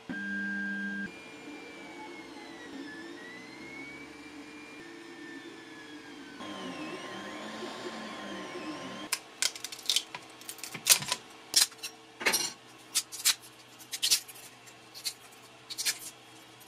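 A desktop 3D printer gives a short beep, then its stepper motors whine with pitch sweeping up and down in arcs as the print head moves. About nine seconds in, irregular sharp snaps and crackles follow as support material is broken off the printed ring by hand.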